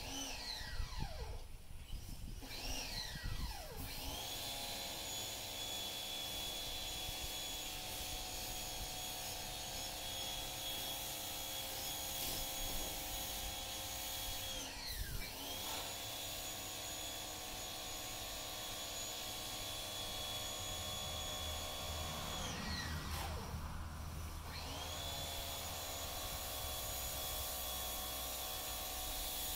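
A small motor running at a steady high speed, winding down and back up about halfway through and again about three quarters through.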